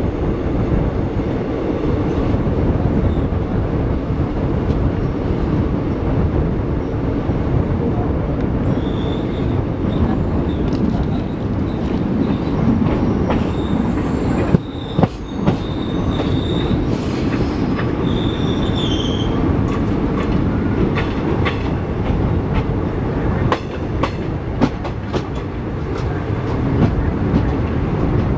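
Wheels of a moving passenger coach running over the track: a steady low rumble with clickety-clack, a high-pitched wheel squeal from about a third of the way in until past the middle, and a few sharp clacks around the middle and again near the end. Heard from the coach's open window.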